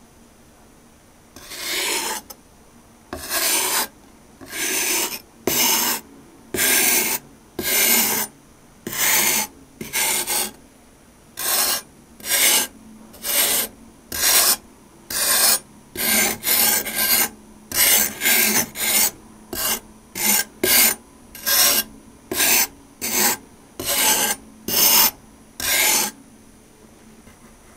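A knife blade drawn repeatedly across packed kinetic sand, giving about thirty short gritty rasping strokes, roughly one a second and coming quicker in the middle.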